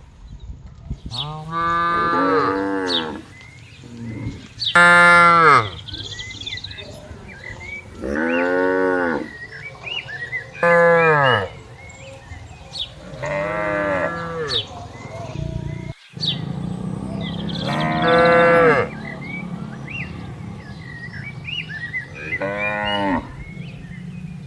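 Cows mooing repeatedly: about seven long moos, each bending up and then down in pitch, a few seconds apart.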